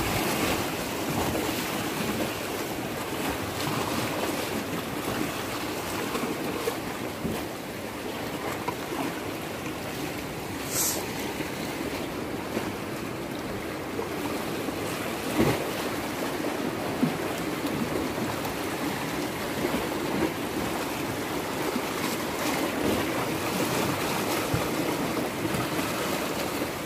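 Sea waves washing and foaming over a rocky shoreline, a steady rush of surf.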